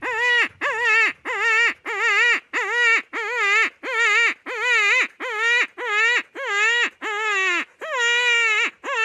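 Predator call for coyotes sounding a series of short, wavering, crying calls, each falling off in pitch at its end, repeated about one and a half to two times a second.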